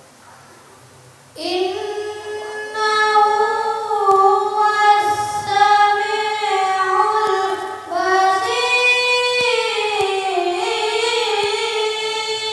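A boy qari reciting the Quran in melodic tilawah style, a high child's voice holding long, ornamented notes. It begins about a second and a half in, with a short pause for breath near the middle.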